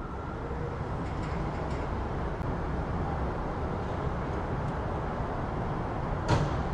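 City street ambience: a steady low rumble of traffic noise, with one sharp knock a little over six seconds in.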